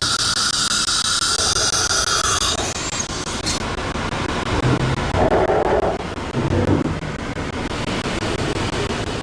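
CNC router's spindle whining steadily, then stopping about two and a half seconds in, followed by rougher machine noise and a few low knocks as the machine runs its automatic tool change and measuring.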